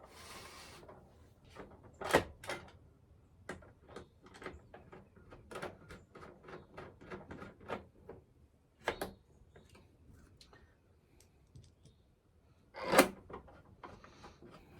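Screws being put in by hand while fitting parts onto an Omlet automatic chicken coop door: a run of light, irregular clicks and taps, with sharper knocks about two seconds in, about nine seconds in, and a louder one near the end.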